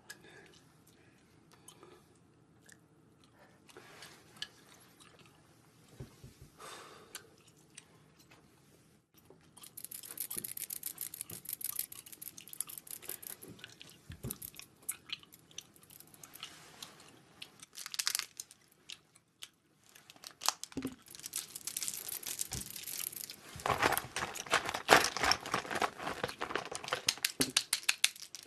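Crinkling and rustling of plastic cosmetic packaging, handled close to the microphone, with many small sharp clicks. Only a few faint handling sounds at first; it becomes dense about ten seconds in and is loudest in the last few seconds.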